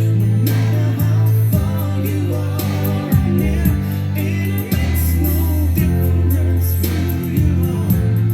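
A song with a singing voice, heavy sustained bass notes and a steady beat, played back through an Aiwa CX-ZKR900HR mini hi-fi system's speakers.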